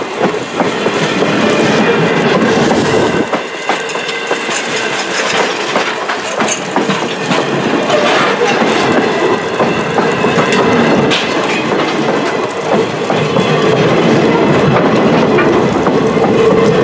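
Steam-hauled passenger train passing close by, its wheels clicking and clattering over the rail joints.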